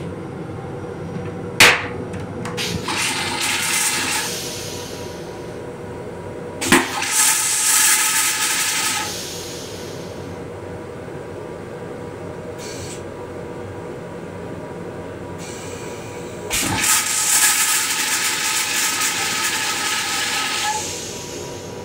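Metro-North M7 railcar toilet flushing its stainless steel bowl: three cycles, each opening with a click or thump and then a hissing rush of water, the last and longest lasting about four seconds near the end. A steady train hum runs underneath.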